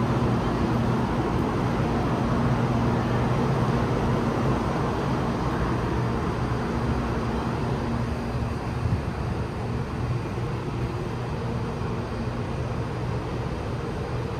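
Steady machine hum and rumble on a high-speed rail station platform, a constant low drone over a rushing noise, easing slightly about two-thirds of the way through.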